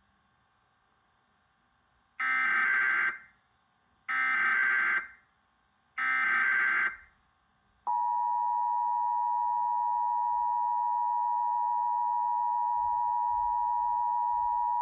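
Emergency Alert System test: three short bursts of warbling data tones from the SAME header, each about a second long and about two seconds apart, then the EAS attention signal, a steady two-tone alert (853 and 960 Hz), begins about eight seconds in and holds.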